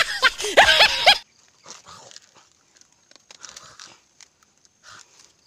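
A run of high, gliding whine-like calls that stop abruptly a little over a second in, followed by faint chewing and mouth sounds of a banana being eaten.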